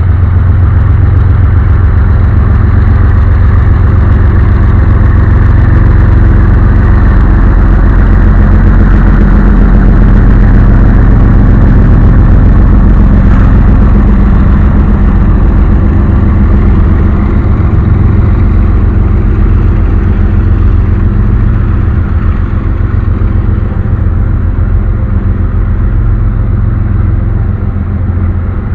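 Canadian Pacific coal train's cars rolling past at close range: a loud, steady, deep rumble and clatter of steel wheels on rail, easing slightly near the end.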